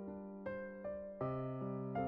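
Background music: a slow, gentle melody on a keyboard with an electric-piano sound, a new note or chord struck about every half second.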